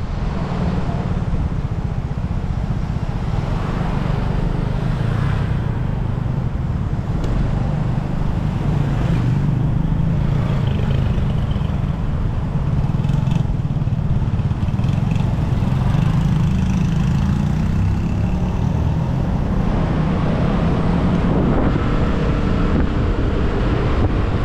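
Motor scooter engine running at riding speed, its note drifting slowly up and down, over steady road and wind noise.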